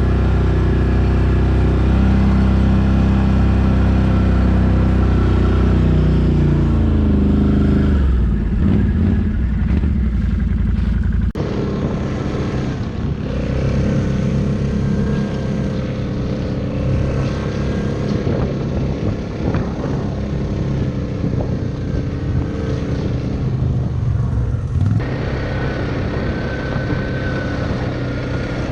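Can-Am Renegade 800 ATV's V-twin engine running under way, its pitch dropping about seven seconds in. About eleven seconds in the sound changes abruptly to a rougher, varying engine note.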